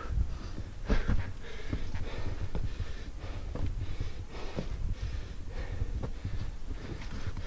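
A climber breathing hard while scrambling up steep rock, with about one breath a second. A steady low rumble of wind on the microphone runs underneath.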